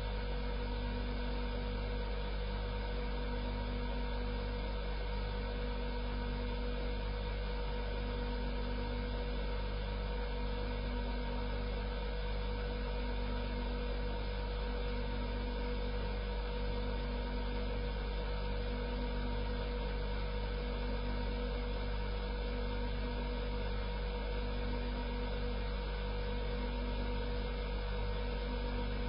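Electric grinder (sharpening machine) running steadily up close: an even motor hum with a slow, regular throb a little more than once a second.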